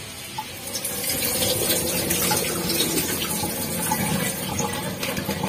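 Juice squeezed from salted grated green papaya poured from a metal basin through a plastic strainer, a steady stream splashing into a stainless steel sink.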